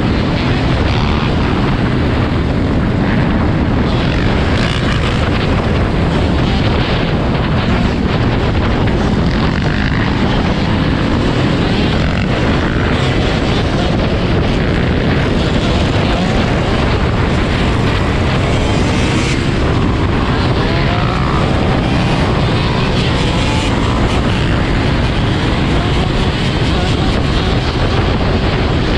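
Dirt bike engines running at riding speed: the rider's own green Kawasaki-style dirt bike close to the microphone, mixed with a pack of other dirt bikes, with pitch rising and falling now and then as bikes rev.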